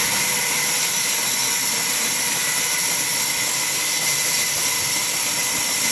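Sawmill band saw running and cutting through a log as it is pushed through the blade: a steady loud hiss with a high, even whine.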